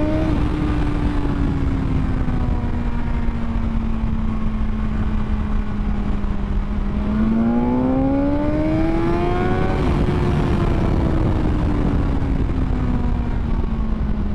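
BMW S1000XR's inline-four engine heard from the rider's seat. The revs peak right at the start and fall away slowly for several seconds. About seven seconds in, the rider opens the throttle and the engine climbs for about three seconds, then the revs fall slowly again off the throttle.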